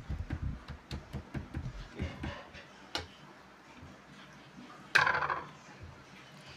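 Chef's knife slicing raw chicken breast thin against a woven mat, with a run of soft low knocks in the first couple of seconds. About five seconds in there is a brief louder rustling noise as the meat is handled.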